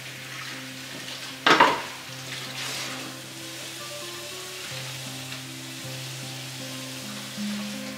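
Water running into a stainless steel sink as it is rinsed out by hand, a steady hiss with one short, louder splash about a second and a half in. Soft background music with long held low notes plays underneath.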